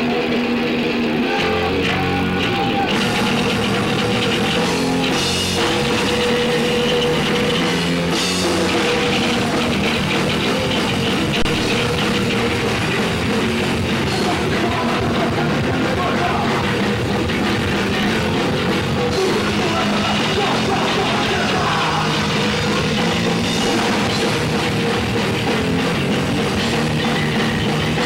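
Punk rock band playing live: electric bass, guitar and drum kit in a loud, continuous wall of sound.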